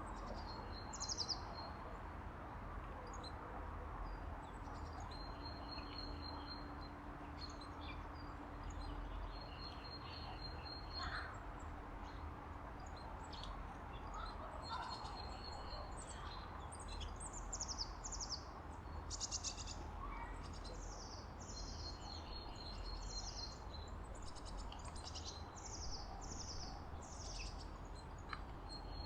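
Small songbirds calling: short high chirps, scattered at first, then a quick run of repeated falling chirps through the second half, over a steady low background rumble.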